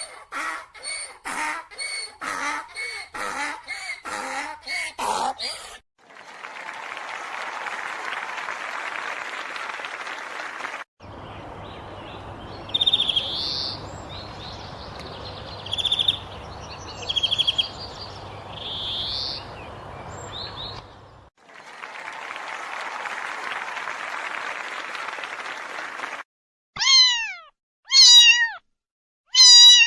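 A quiz sequence of different recorded sounds: about five seconds of rapid, repeated short calls, two stretches of steady hiss with a stretch of bright chirps over a low hum between them, then a domestic cat meowing three times near the end, each meow falling in pitch.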